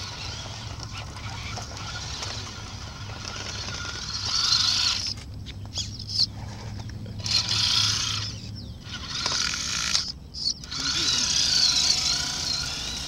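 Electric motor and gearbox of a Tamiya Highlift Toyota Tundra scale RC truck whining in on-and-off bursts as it crawls over dirt ruts past the camera. The whine cuts out each time the throttle is let off.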